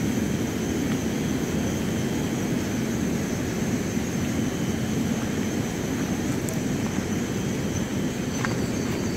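Steady, even low rumbling noise with no rhythm or change, and a faint high steady whine above it.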